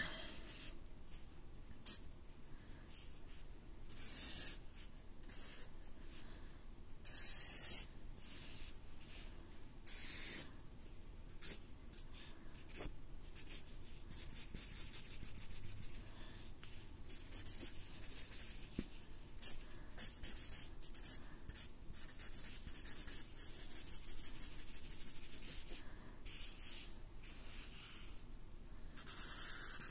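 Sharpie marker tip scratching across paper in quick hatching strokes, each stroke a short dry hiss. The strokes come nearly nonstop for a stretch in the second half.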